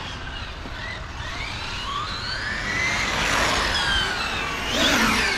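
Radio-controlled cars' electric motors whining, the pitch rising and falling as they speed up and pass, loudest about three seconds in and again near five seconds.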